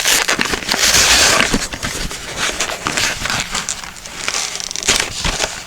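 Stiff plastic blister packaging being handled and pried at by hand: crinkling and crackling with scattered sharp clicks, loudest about a second in, then quieter.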